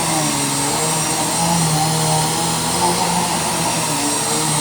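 Bissell PowerForce Helix Turbo Pet upright vacuum running steadily with its brush roll on, sucking up pet hair. There is a constant motor hum whose tones waver slightly in pitch.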